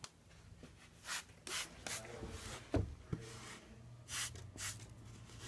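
A cloth rubbing and scrubbing on a carpet rug, wiping up a wet patch: several short, faint swishes, with a soft thump about halfway through.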